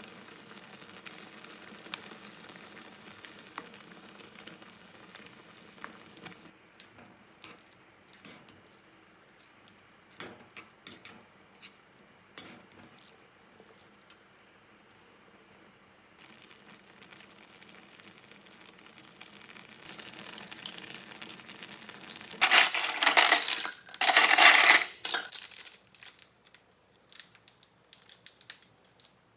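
Faint kitchen sounds: a low sizzle with scattered clinks and taps, then two loud rushes of noise, each about a second long, a little before the end.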